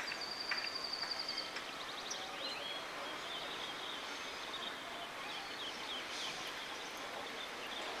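Small birds chirping over a steady background hiss: a high whistled note for about the first second and a half, then runs of short chirps in the middle.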